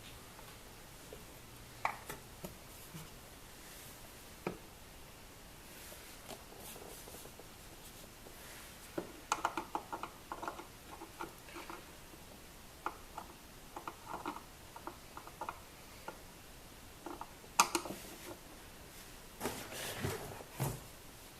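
Scattered small clicks, taps and scrapes of hand work with a screwdriver on the screws of a car's plastic glove box. The clicks come in a quick irregular run through the middle, with one sharper click and some rustling near the end.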